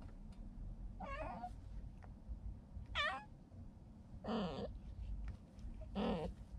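Heavily pregnant calico cat meowing four times, a short call every second or two.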